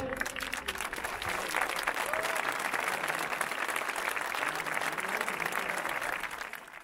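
Large crowd applauding steadily, then fading out near the end.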